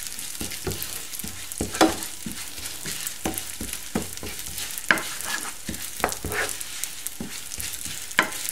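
Vermicelli noodles sizzling as they fry in butter, margarine and oil in a non-stick pan, while a wooden spoon stirs them, scraping and knocking against the pan in irregular clicks. The noodles are kept moving so they toast golden without burning.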